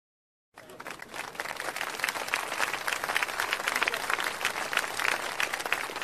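Applause: many hands clapping, starting about half a second in and swelling over the next second or two.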